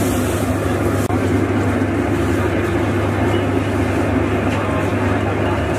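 Steady, unbroken din of a busy street, with a constant low hum underneath.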